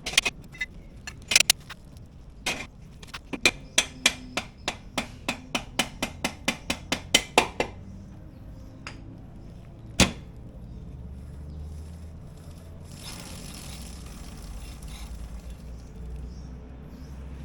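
Hand-tool work on a motorcycle's rear brake: a run of sharp metallic clicks or taps, about three a second, that stops about eight seconds in. One loud knock follows about ten seconds in, then a brief hiss.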